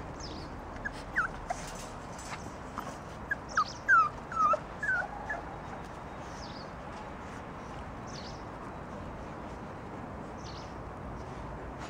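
Puppies whimpering and yipping in short high whines: a couple about a second in, then a louder cluster around four to five seconds in.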